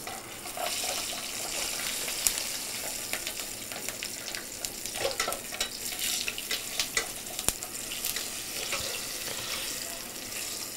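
Floured partridge sizzling as it browns in hot olive oil in a small pan, a steady hiss full of fine crackles and pops, with a couple of sharp clicks.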